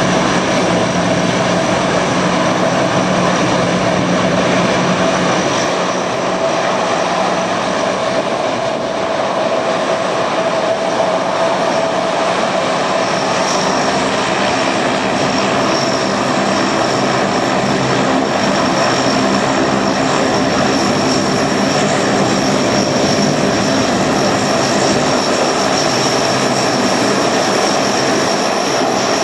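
Lockheed C-130 Hercules taxiing, its four turboprop engines and propellers running in a steady drone with a high whine that grows stronger about halfway through.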